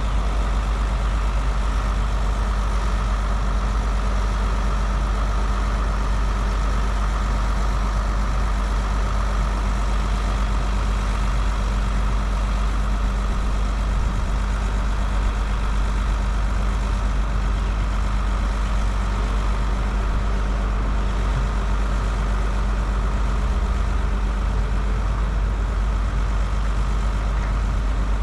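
Excavator's heavy diesel engine running steadily with an unchanging low drone.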